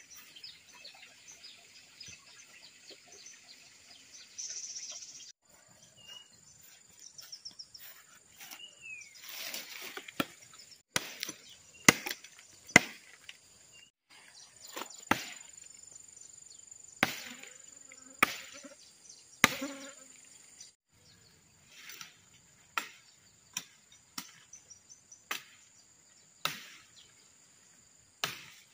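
Machete blows chopping a wooden pole: sharp, irregular strikes about a second apart, starting about a third of the way in. Under them runs a steady high drone of insects.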